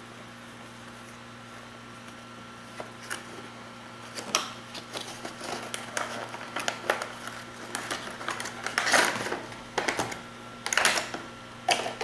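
Cardboard cube box and its plastic wrapping being handled and opened: scattered taps, scrapes and rustling crinkles as the cube comes out, starting about a third of the way in, with the loudest bursts near the end. A faint steady hum sits underneath.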